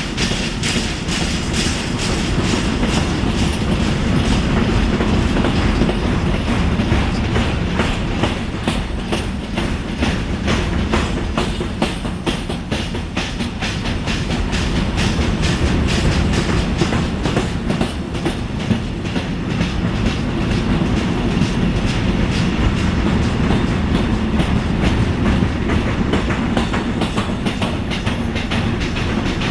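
Freight wagons rolling past on wheels with flat spots, the so-called square wheels, which hammer the rail in a dense, repeated series of heavy knocks over the rumble of the wheels. The flat spots come from wheels sliding with the brakes on.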